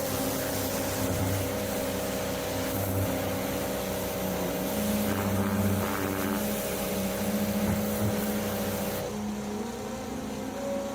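Pressure washer running, its jet blasting water into a car's fuel tank to knock out rust scale and sand. The hiss of the spray stops about nine seconds in while the machine keeps running.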